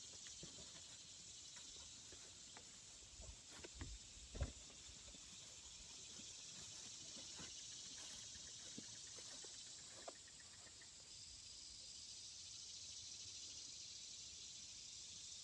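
Near silence outdoors: a faint, steady, high-pitched insect chorus, with a few soft knocks about three to four and a half seconds in.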